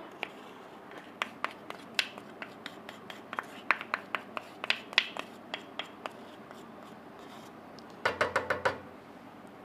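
A kitchen utensil scraping and tapping against a bowl as the last of the palm sugar is scraped into a flat pan: irregular sharp clicks, with a short louder scraping run near the end.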